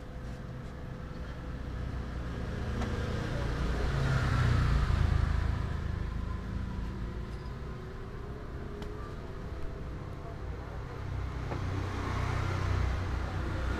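Road traffic going by: a vehicle's engine and tyre noise swells and fades about four to five seconds in, and another rises near the end, with a few faint clicks in between.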